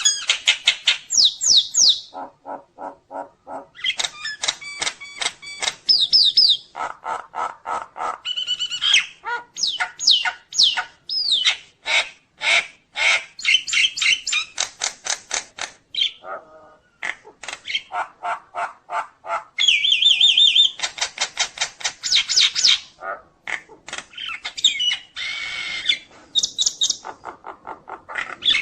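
Nias hill myna singing a loud, varied string of calls: fast runs of short repeated notes, rising and falling whistles and harsh squawks, the full repertoire that keepers call 'full isian'.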